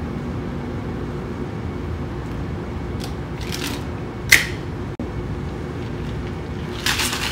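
Two-piece metal cocktail shaker tins, with ice inside, being fitted and knocked together: a few sharp clicks, the loudest about four seconds in as the tins are pressed into a seal, over a steady background hum. A rustling starts near the end.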